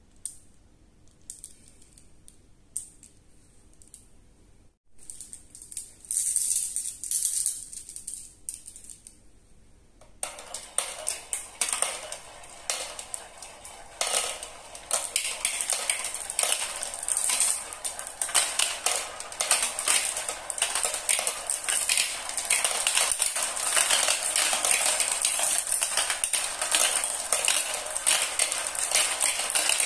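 Glass marbles clattering through a plastic marble run: they spin around the plastic funnels, click against each other and rattle down the chutes. A few scattered clicks at first, then from about ten seconds in a dense, continuous clatter that fills out further as more marbles pour in.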